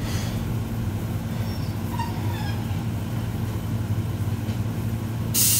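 Steady low hum inside a stopped Keihan high-floor tram car, then about five seconds in a sudden loud rush of air hiss as the car's pneumatic doors are worked open.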